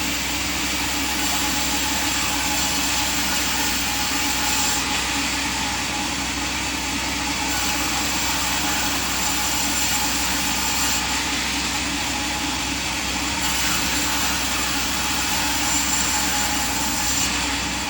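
Sawmill machinery running steadily: a constant mechanical hum with a thin, steady whine over it. The hiss shifts slightly every few seconds.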